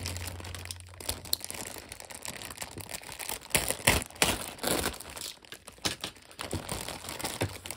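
Clear plastic bags crinkling and rustling as they are handled, in irregular crackles with a few louder ones around the middle.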